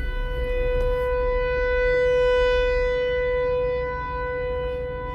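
Federal Signal 508 rotating warning siren sounding a steady full-alert tone. It swells to its loudest a little past the middle as the rotating horn turns toward the listener, then fades as it turns away.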